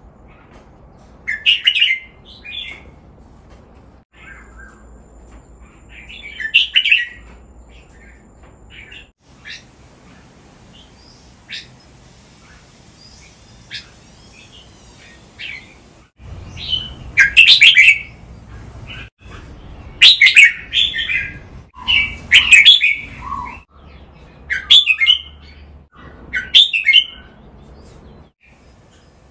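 Red-whiskered bulbuls singing: seven loud, short whistled phrases, two in the first few seconds and five packed closer together in the second half, with scattered softer chirps in between.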